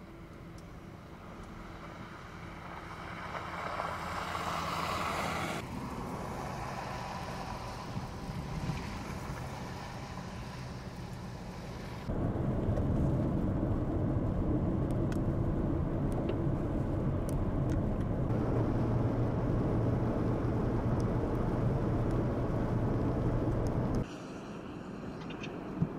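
Cars and trucks driving on a snow-covered road: tyres hissing through snow and slush over engine noise, with one vehicle passing close about four to five seconds in. From about twelve seconds in, a steadier and louder low rumble runs for some twelve seconds, then cuts off abruptly to a quieter hiss.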